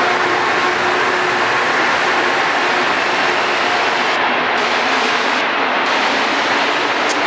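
Rubber-tyred Montreal metro train pulling out along the platform: a loud, steady rumble and rush of the moving cars, with faint motor tones in the first few seconds.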